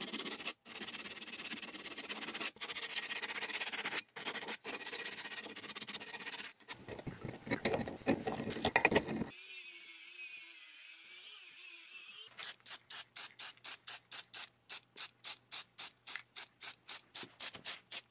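Sandpaper and a small wire brush scrubbing and scraping a small metal handwheel in short back-and-forth strokes, in several cut-together bits. In the last third the strokes settle into a steady rhythm of sharp rasps, about two or three a second.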